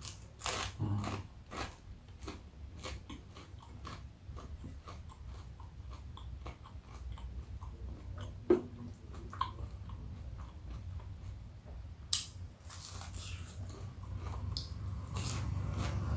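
Close-miked eating: chewing and biting into crispy breaded chicken nuggets, with many small crunches. One sharp crunch about eight and a half seconds in is the loudest.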